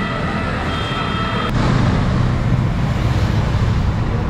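Busy road traffic, with the engines of passing motorbikes and auto-rickshaws rumbling steadily. A steady high-pitched tone sits over the traffic at first and stops with a click about one and a half seconds in.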